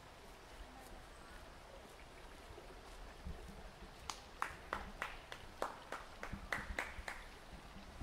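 Faint outdoor ambience, then about halfway through a quick, irregular run of sharp clicks and light thumps lasting about three seconds: footsteps on a hard path.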